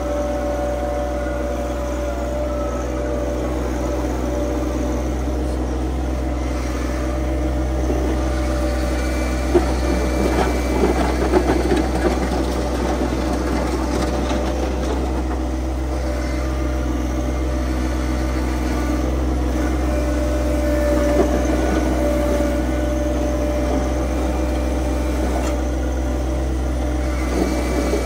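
Tractor engine running steadily under the operator, with a few short knocks and rattles about a third of the way in and again near the end.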